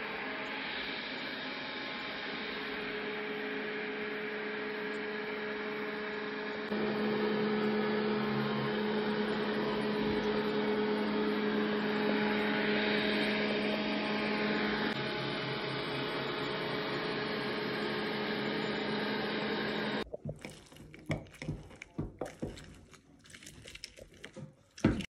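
Robot vacuum cleaner running with a steady hum, getting louder about seven seconds in. About twenty seconds in it gives way to an orange half being twisted on a plastic hand citrus juicer: irregular rubbing and squeezing sounds, ending with a sharp knock.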